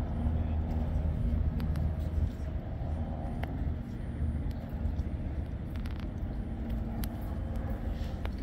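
Steady low engine-like hum with a faint background hiss and a few scattered clicks.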